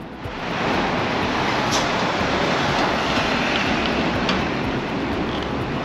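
Steady city street traffic noise at a busy intersection, with a box truck passing and a few faint, brief high squeaks.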